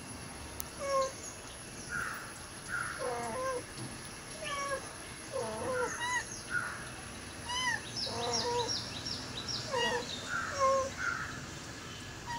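Kitten mewing over and over in short, high calls, one or two a second.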